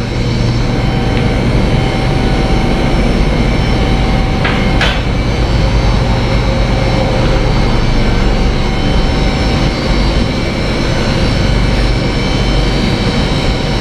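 Steady, loud mechanical running noise with a constant low hum and several fixed tones, unchanging in pitch, with two short knocks about four and a half seconds in.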